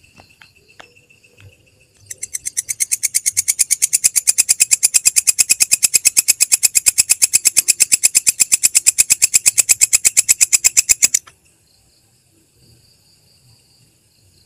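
Belalang kecek katydid stridulating: a long, fast train of sharp, high-pitched ticks, about six a second, that swells over the first two seconds, holds steady, and stops abruptly near the end. Faint steady insect trilling continues underneath.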